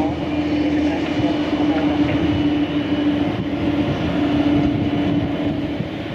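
Jet engines of a Boeing 777-200ER, GE90 turbofans, running at low taxi thrust as the airliner rolls slowly onto the runway. A steady drone with one strong held tone over a low rumble.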